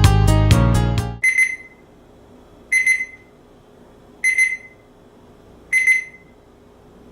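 Music stops about a second in, then the ETI ThermaGuard 102 PHARM digital thermometer's temperature alarm beeps: short quick runs of high electronic beeps, one run every second and a half, four times.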